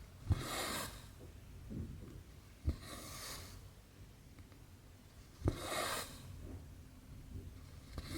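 Cotton embroidery floss pulled through cross-stitch fabric: a short tap as the needle goes through, then a brief swish as the thread is drawn taut. This happens three times about two and a half seconds apart, with a fourth swish starting at the end.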